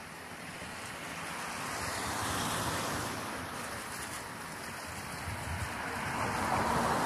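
Cars passing on a road close by: a hiss of tyres that swells and fades twice, about two and a half seconds in and again near the end, over a steady outdoor hiss.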